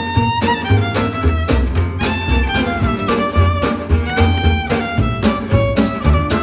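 Instrumental music with a fiddle or violin melody over a steady beat and bass.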